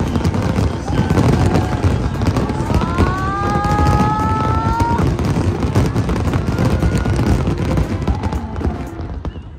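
Fireworks going off: dense crackling and bangs of bursting shells, with a rising whistle about two and a half seconds in, dying away near the end.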